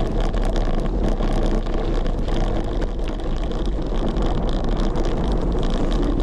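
Wind rumbling on a camera microphone that has no wind suppression, during a bicycle ride: a steady, loud low roar broken by frequent short clicks and knocks.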